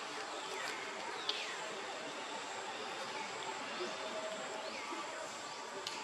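Outdoor ambience of steadily buzzing insects, with a few short calls that fall in pitch.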